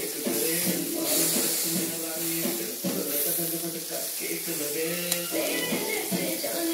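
Background music with a held melody over meat and vegetables sizzling in a frying pan, with a metal spatula stirring and one sharp tap about five seconds in.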